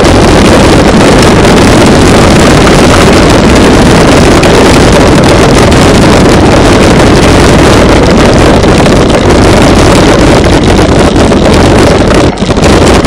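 Loud, constant wind buffeting and rumble on a handlebar-mounted action camera's microphone as a mountain bike rides over a rough, stony track. The noise drops briefly near the end.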